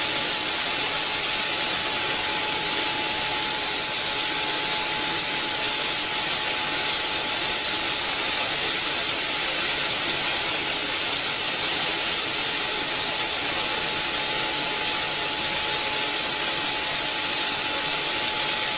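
Pneumatic grain suction conveyor running: a steady, loud rushing hiss with a thin, steady whine.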